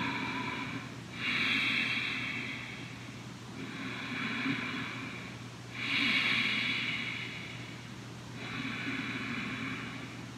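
A man breathing slowly and deeply, audible inhales and exhales taking turns, each lasting about two seconds, while he holds a wrist stretch.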